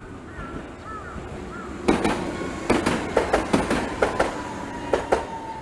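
Tokyu Setagaya Line tram passing close by, its wheels clacking sharply over the rail joints about ten times in quick irregular succession. A faint whine falls slowly in pitch as it goes.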